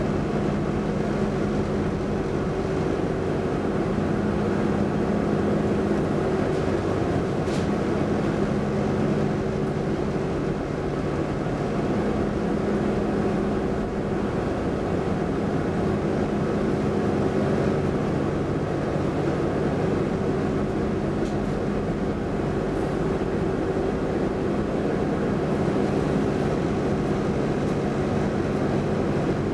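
Cabin noise inside an X10 electric commuter train car riding along: a steady rumble with a constant low hum that neither rises nor falls. A single faint click about seven seconds in.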